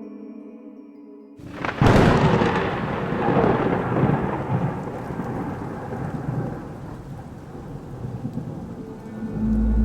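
Soft sustained drone tones, then about a second and a half in a sudden thunderclap that rolls and slowly fades over several seconds under steady rain. A deep low tone comes in near the end.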